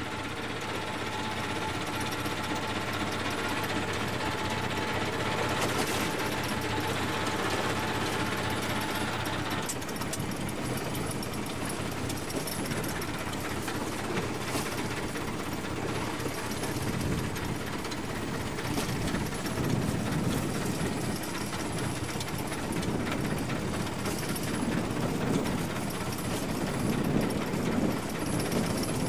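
Fishing boat's engine running steadily, a continuous mechanical clatter; about ten seconds in, the higher hiss drops away.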